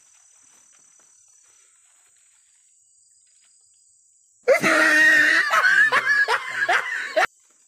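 A loud burst of high-pitched laughter, about four and a half seconds in, with repeated rising 'ha' sweeps for under three seconds before it cuts off suddenly.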